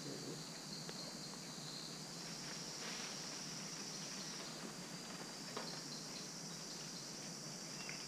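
Rainforest insect chorus: a steady, high-pitched buzzing that shifts slightly in pitch now and then.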